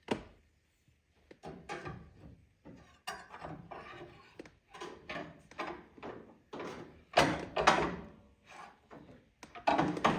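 Metal dent-repair rods knocking and clattering irregularly against the inner panels of a 1970 Chevelle's front fender, loudest in a cluster about seven seconds in, as the tool is worked in to reach a dent that a double panel blocks.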